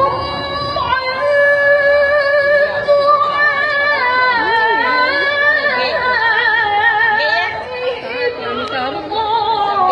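A woman's voice reciting the Qur'an in the melodic tilawah style: one long drawn-out phrase of held notes with quavering ornaments that move up and down in pitch, a brief break near the end, then the next phrase begins.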